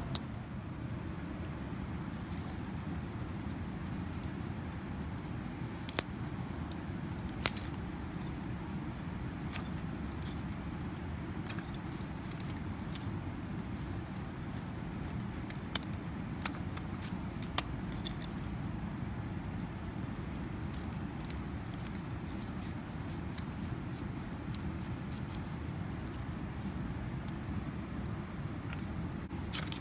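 A steady low rumble with scattered sharp clicks and knocks; the two loudest knocks come about six and seven and a half seconds in.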